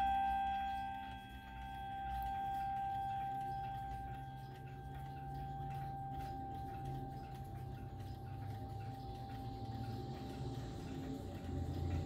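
The chime rods of a Howard Miller triple-chime mantel clock ringing out and slowly fading after the half-hour chime, one note lingering longest. The clock's movement ticks steadily underneath.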